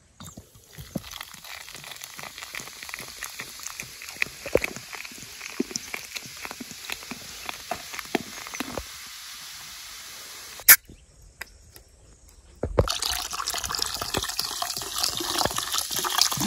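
Beer poured from a glass bottle into a metal kadai, splashing and fizzing with many small crackles as the foam builds. A sharp click about eleven seconds in, a short lull, then louder, heavier pouring near the end.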